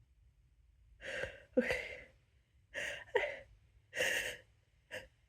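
A person's hitching, gasping inhales building up to a sneeze: about six short breathy catches starting about a second in, several in quick pairs.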